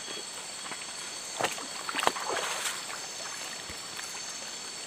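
A few splashes and sloshes of water between about one and a half and three seconds in, over a steady high buzzing chorus of night insects.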